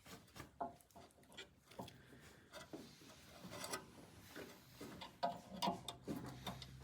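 Faint, irregular small clicks and taps of hands fitting the thermocouple wires into a manual connector on a dental press furnace.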